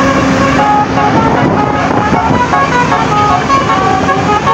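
Bus telolet horn of the Basuri type playing a tune: a run of short, steady notes stepping up and down in pitch over engine and road noise.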